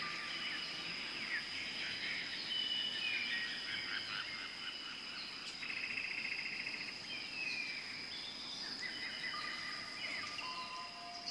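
Outdoor chorus of many birds whistling, chirping and trilling over a steady high-pitched insect drone.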